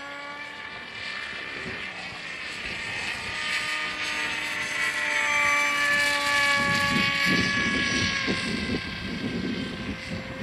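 Electric motor and propeller of an AXN Floater RC plane whining in flight, the pitch drifting slowly as it flies round and growing louder towards the middle. From about two-thirds of the way in, gusts of wind buffet the microphone.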